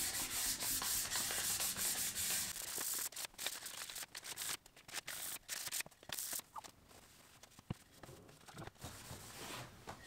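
A wooden block being hand-sanded with fine sandpaper: steady rasping strokes for about the first three seconds. After that come scattered short rustles and a few light clicks as the sandpaper and the block are handled.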